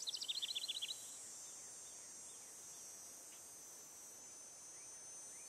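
A bird's fast trill of rapid chirps lasting about a second, over a steady high-pitched insect drone. A few faint bird chirps follow later.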